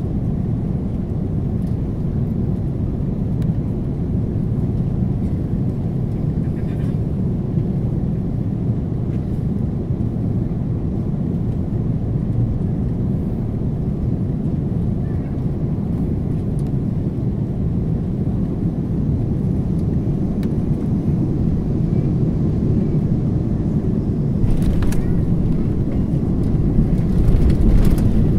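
Airliner cabin noise on final approach: a steady low rumble of engines and rushing air, growing a little louder near the end, with a few brief knocks and rattles as the wheels meet the runway.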